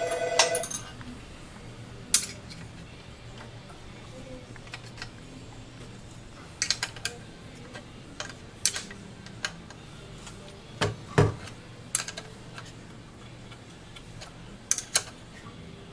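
Scattered metallic clicks and taps from a wrench working the belt-tensioning screw on the saw's drive kit, about a dozen at irregular intervals. A short electronic two-note tone sounds for the first half second.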